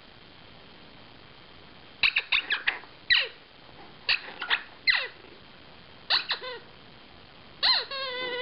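A dog's squeaky chew toy squeaking as she bites down on it: short squeaks, each falling in pitch, in quick clusters of several, repeated about half a dozen times. The last one is longer and trails off in a wavering squeal near the end.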